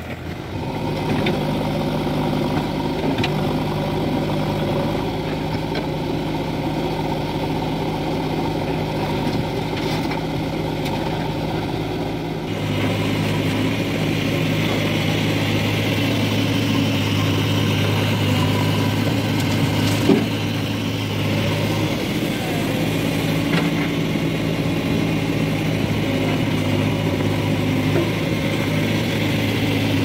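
Swaraj tractor's diesel engine running as it pulls a loaded trolley along a dirt track. About twelve seconds in the sound changes to the steady run of a JCB 3DX backhoe loader's diesel engine as its hydraulic arm lifts a bucket of mud, with a single sharp knock around twenty seconds in.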